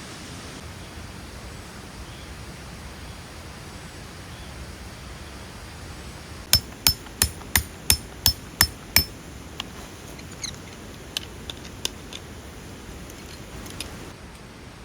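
Hammer strikes: eight sharp, evenly spaced blows, about three a second, about halfway through, followed by a few lighter scattered taps, over a steady rushing hiss.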